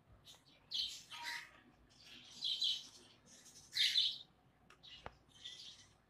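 A bird calling in short chirps, about five of them spaced a second or so apart, the loudest a little after the middle.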